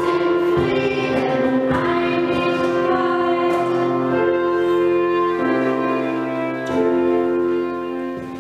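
Children singing a carol with instrumental accompaniment, settling into long held notes that begin to fade near the end.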